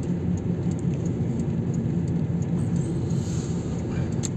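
Steady drone of engine and road noise heard inside the cabin of a vehicle driving along.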